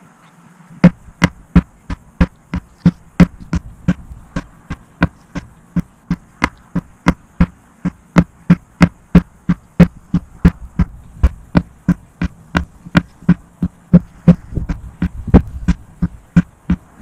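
A hand sledgehammer, swung one-armed, striking a rubber tractor tire over and over: a steady run of dull thuds, about three a second, starting about a second in.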